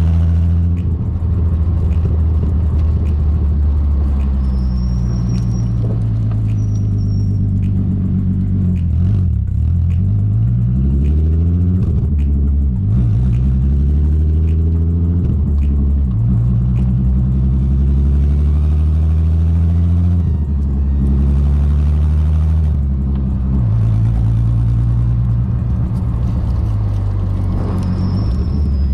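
Exhaust note of a Corrado's swapped-in 3.6-litre VR6 (BLV), running through a custom exhaust with a Magnaflow muffler, heard at the tailpipe while the car is driven. Mostly a steady drone at part throttle, with the pitch falling and rising a few times as the revs change between about eight and sixteen seconds in.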